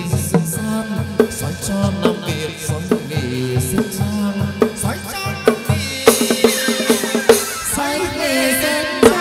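Chầu văn ritual ensemble playing an instrumental passage: a pitched string melody over steady drum and percussion beats, with no singing.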